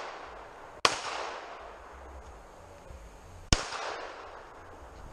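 Two pistol shots fired nearly three seconds apart, each followed by a fading echo.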